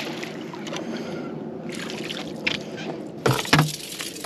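A small hooked bass splashing and thrashing at the water's surface as it is reeled up to the boat, followed by a few sharp knocks near the end.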